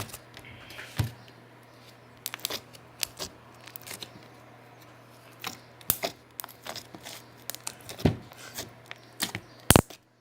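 Slime being squeezed and worked by hand, giving irregular sharp clicks and crackling pops.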